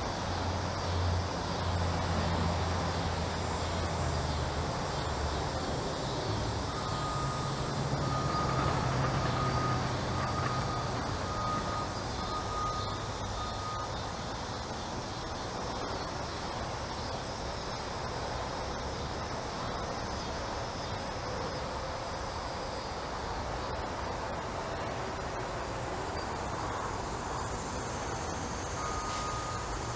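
Outdoor background noise: the low rumble of a distant vehicle, strongest over the first ten seconds or so and then easing, under a steady hiss, with a faint high chirping on and off.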